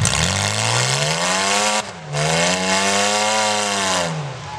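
Demolition derby car engine revved twice: the pitch climbs and holds, drops briefly about two seconds in, then rises again and falls away near the end.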